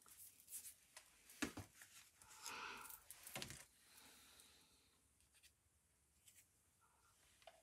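Faint rustling, light scraping and small taps of paper card and vellum being handled and pressed into place by hand, busiest in the first half and nearly quiet after.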